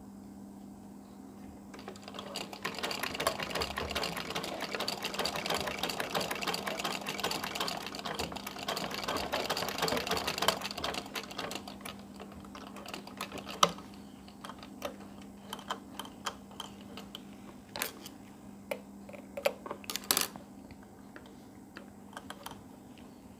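Sewing machine stitching: a fast, even clatter of the needle for about nine seconds from about two seconds in, then stopping. Scattered sharp clicks and knocks follow as the machine and fabric are handled.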